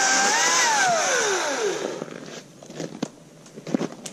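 Ryobi 40V battery chainsaw cutting a branch: its electric motor whine climbs briefly, then winds down over about a second. A few scattered cracks and knocks follow.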